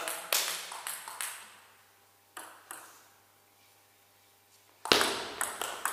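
Table tennis rally: the ball ticking sharply off the bats and the table, about five hits spaced a half second or so apart. About five seconds in, a louder burst of noise with more hits begins.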